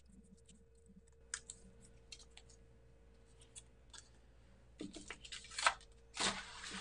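Faint clicks and small crinkles of fingers picking the backing off a small adhesive foam square. Near the end comes a louder crinkling rustle as a clear plastic stamp sheet is handled.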